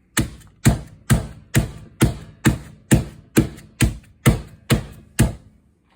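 Petite sirloin steak being pounded flat with a mallet: about a dozen evenly spaced blows, roughly two a second.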